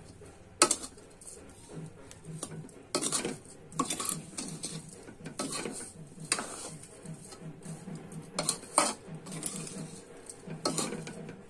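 Slotted spatula scraping and knocking against a non-stick pan while stirring a dry, crumbly semolina-and-khoya gujiya filling, in irregular strokes about once a second.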